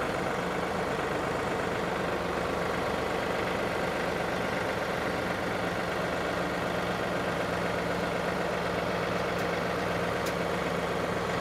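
Compact tractor's diesel engine running steadily at a constant speed, with no change in pitch or level.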